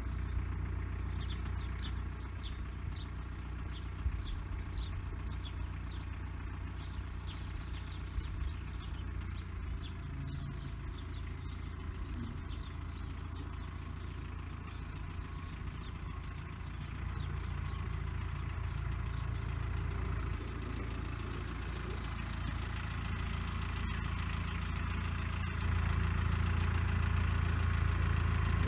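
Branson 5025C compact tractor's diesel engine running steadily as the tractor drives up, getting louder in two steps as it comes close, the second a few seconds before the end.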